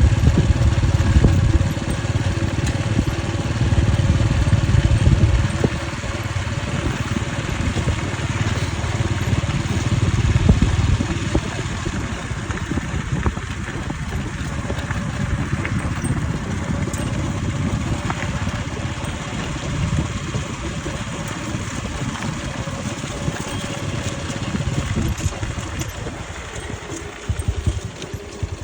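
An engine running steadily, with a continuous low rumble and a faint steady hum.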